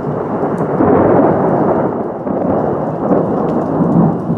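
Thunder rumbling from nearby lightning strikes, swelling loud about a second in and surging again near the end, with rain pattering.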